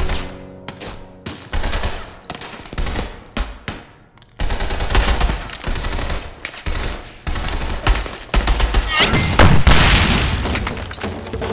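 Film gunfire: rapid shots and machine-gun bursts, growing denser about four seconds in, then a big explosion near the end, the loudest moment.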